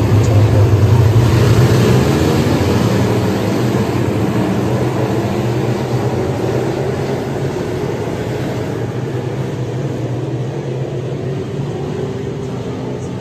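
A pack of USRA limited modified dirt-track race cars racing, their V8 engines loudest in the first couple of seconds as they pass and then fading steadily as they move away around the track.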